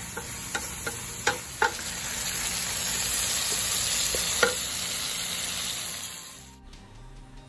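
Mussels and sliced peppers sizzling in a stone-coated frying pan while a wooden spatula stirs them, knocking against the pan several times in the first two seconds and once more about four seconds in. The sizzle swells in the middle and cuts off shortly before the end.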